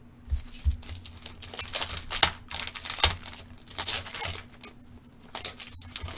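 Foil trading-card pack being torn open by hand, the wrapper crinkling and tearing in a quick run of sharp crackles.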